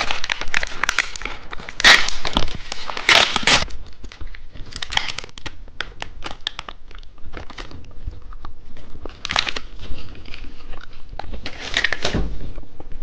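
Plastic wrapper of a cheese stick snack being torn open and crinkled, in repeated crackling bursts.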